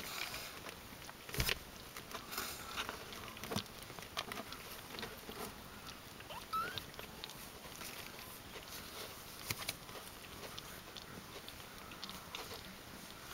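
Soft rustling and scattered light taps as 17-day-old Ragdoll kittens crawl and tussle on a blanket, with one brief faint rising squeak about six and a half seconds in.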